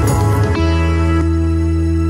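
Background music: a few quick notes, then a chord held steadily from about half a second in.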